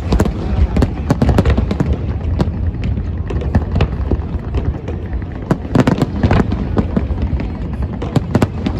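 Large aerial fireworks bursting in rapid succession: many overlapping bangs and crackles over a continuous low rumble, with dense clusters of bursts about two-thirds of the way through and again near the end.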